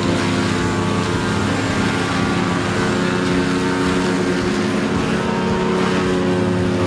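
A large machine engine running steadily at constant speed: a deep, even drone with no revving or load changes.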